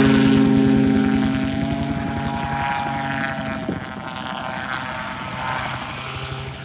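Gyroplane's engine and pusher propeller running steadily at high power, growing fainter as the aircraft moves away; the tone dips and fades about four seconds in.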